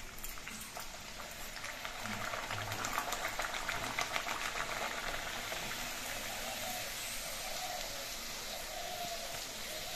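A pumpkin kachuri deep-frying in hot oil in a kadai: a crackling sizzle that builds over the first few seconds after the dough goes in, is loudest a few seconds in, then settles to a steady sizzle.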